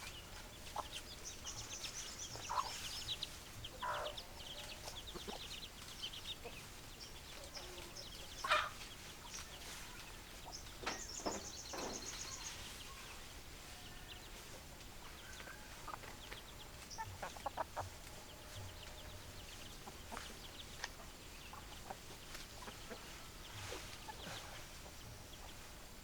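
Hens clucking in short, scattered calls, with two bursts of fast, high-pitched chirping.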